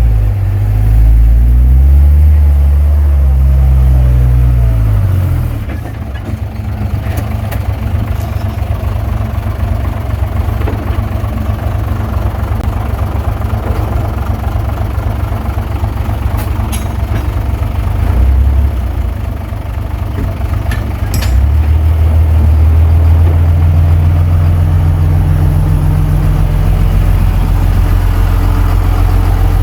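Komatsu D21P bulldozer's diesel engine working, its pitch rising and falling for the first few seconds, then running lower and quieter, with a brief surge in the middle, before picking up to a steady, louder run from about two-thirds of the way through. A few faint metallic clinks over it.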